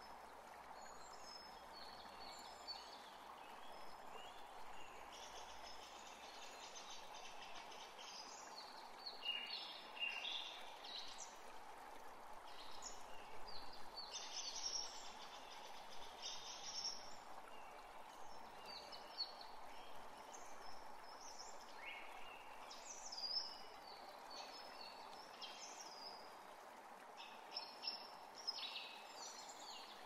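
Steady rush of falling water, with many birds chirping and singing over it, busiest about a third of the way in and again near the end.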